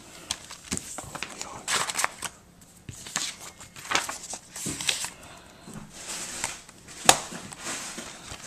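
A DVD case and its packaging being handled: scattered clicks, rustling and scraping, with a sharp click about seven seconds in.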